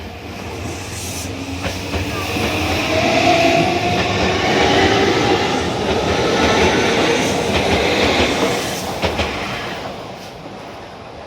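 Tokyu Oimachi Line electric train passing over a level crossing: a rush of wheels and running gear that swells, holds loud through the middle and fades near the end, with a few sharp wheel clacks over the rail joints.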